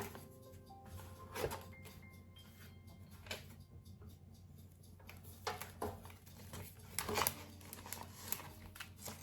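A few light, scattered taps and knocks of kitchen work during food preparation, a handful of separate strikes a second or two apart.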